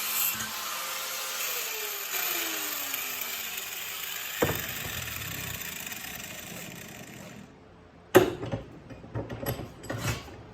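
A power tool running, then switched off and winding down, its whine falling steadily in pitch over about two seconds while a hiss carries on and fades. A single knock comes midway, then a burst of metal knocks and clanks near the end.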